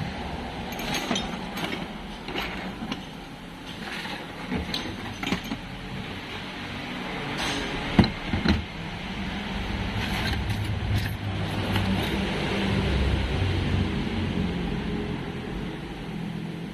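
Scattered clinks and knocks of metal on metal, with one sharp knock about eight seconds in. A low, steady rumble like a running vehicle swells through the second half.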